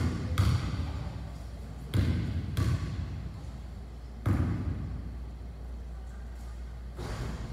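A basketball bouncing on a hardwood gym floor about five times, roughly in pairs, as a free-throw shooter dribbles before her shot. Each bounce echoes in the hall.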